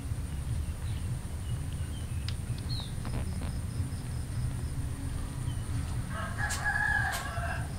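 A drawn-out animal call lasting under two seconds near the end, over a steady low rumble, with a few faint short chirps earlier.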